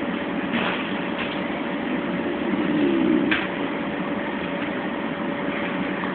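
Snoring: one slow snoring breath about two and a half seconds in, over a steady hum, with a short click just after it.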